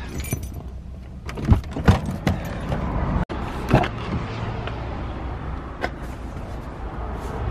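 A pickup truck's doors being opened and a cardboard box handled on the seat: a few sharp knocks and thuds, over a low steady rumble.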